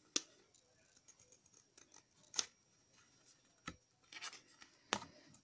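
Scissors snipping through cardstock in a few separate sharp cuts, spaced a second or two apart, then the card rubbing as it is handled and folded.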